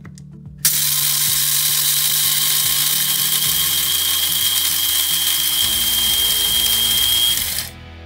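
Krups electric blade spice grinder grinding whole coffee beans: the motor starts abruptly under a second in, runs as a loud steady whir with a thin high whine for about seven seconds, and cuts off sharply near the end.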